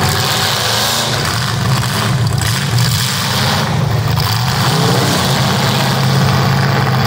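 Demolition derby car engines running loud and steady, with a deep rumble.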